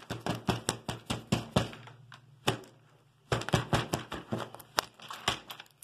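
A rapid series of sharp clicks and taps, about three to four a second, from plastic toy pieces and the camera being handled, thinning out about two seconds in and picking up again past the three-second mark. A faint low hum lies under the first two seconds or so.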